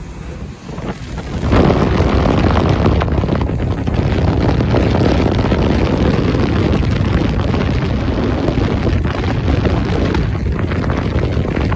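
Wind buffeting the microphone on a speedboat under way, over the steady drone of the boat's engine and its rushing wake. The wind noise jumps up sharply about a second and a half in and stays loud.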